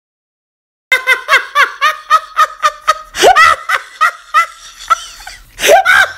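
Silence for about the first second, then high-pitched laughter in quick repeated 'ha's, about five a second, growing louder about three seconds in and again near the end.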